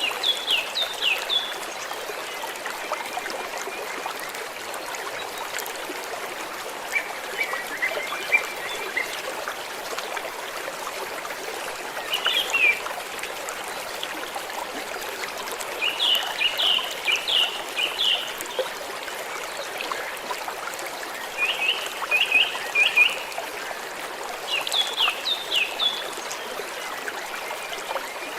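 Small stream of water trickling and running steadily. Small birds chirp in quick bursts of several notes every few seconds.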